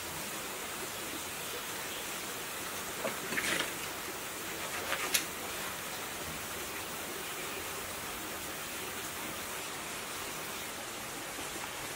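Steady hiss in the background, with a brief crackly rustle of cloth insulating tape being handled on a generator stator's coils about three seconds in and a sharp click about five seconds in.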